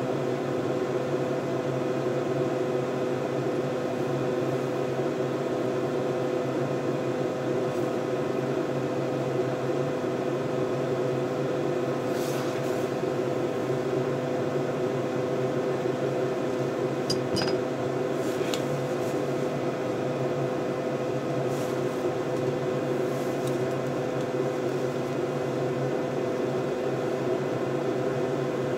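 Steady hum and fan noise from running bench test equipment, with a few faint clicks in the middle.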